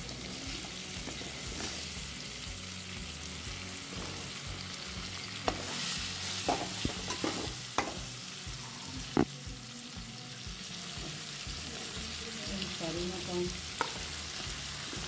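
Spiced mustard-oil masala sizzling steadily in a kadhai as chopped zucchini is added, with a few sharp knocks from the pan between about five and nine seconds in.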